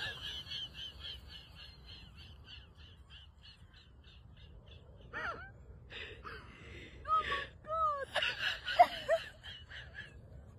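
A woman laughing hard and breathlessly: a run of quick, high, airy pulses that fade away, then short squeaky laughs with sliding pitch in the second half, loudest near the end.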